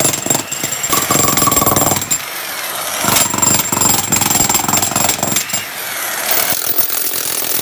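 Makita electric demolition hammer running continuously, its chisel bit hammering rapidly into mortared brick to break a row of hearth bricks into pieces.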